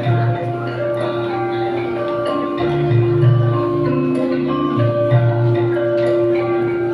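Instrumental background music: a melody of short notes over a long held tone and a bass line that shifts pitch a few times.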